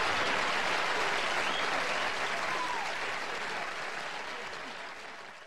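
Studio audience applauding, the clapping slowly dying away toward the end.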